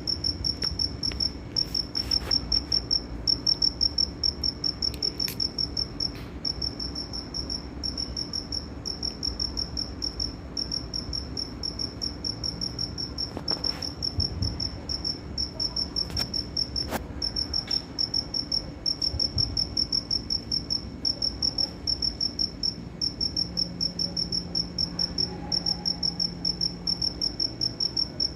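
A cricket chirping steadily: a rapid train of high-pitched pulses, broken by short gaps about every second or two.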